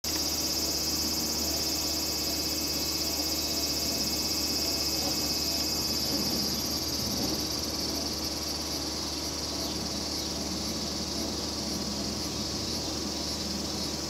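Cicadas singing in a steady summer chorus, a shrill buzz that holds throughout. From about halfway a higher-pitched call pulses about twice a second over the steady buzz.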